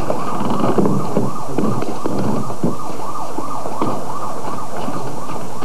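Emergency vehicle siren in a fast yelp, wailing up and down about three times a second, with scattered thuds underneath.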